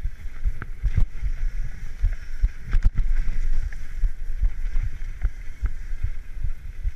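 Mountain bike rolling fast down a dirt trail: a steady low rumble and repeated thuds as the tyres and frame take bumps and roots, with sharp knocks and rattles from the bike, over a steady hiss.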